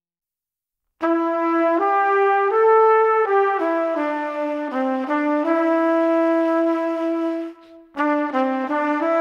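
Background music: after about a second of silence, a brass-led tune like a trumpet starts, playing a melody of held and stepping notes. It breaks off briefly near the end, then the next phrase begins.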